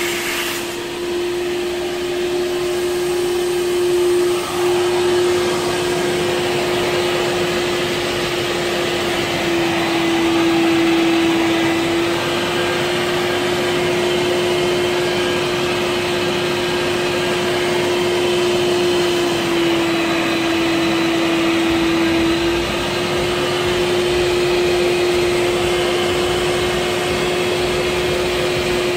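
Kärcher Puzzi 10/1 spray extractor's vacuum motor running steadily with a strong, even whine. Its pitch dips slightly twice, about ten and twenty seconds in.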